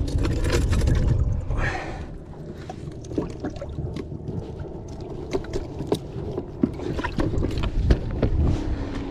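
Water splashing as a bass is put into a boat's livewell, then scattered clicks and knocks of handling the culling clip and hatch on the boat deck.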